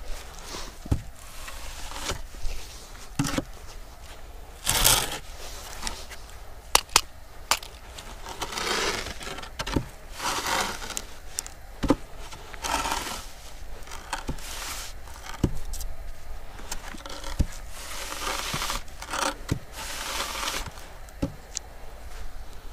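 Wooden screed board with a spirit level taped to it scraping across damp sand in irregular strokes, a second or two apart, levelling the sand bedding under a lean-concrete base. Short sharp clicks and knocks fall between the strokes.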